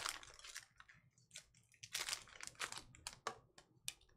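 A foil trading-card pack wrapper crinkles as it is pulled away. A scatter of faint light clicks and slides follows as the cards inside are handled.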